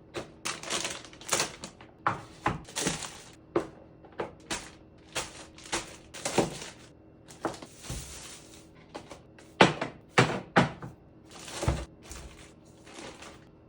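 Groceries being handled and put away: a run of irregular knocks, clicks and thunks as items are picked up and set down, with stretches of rustling packaging.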